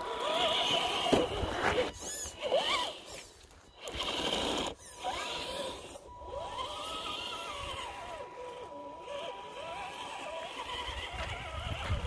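Electric motor and drivetrain of a Traction Hobby scale RC rock crawler whining. The pitch rises and falls again and again as the throttle is worked, over a steady thin high whine, with a few sharp knocks from the rocks.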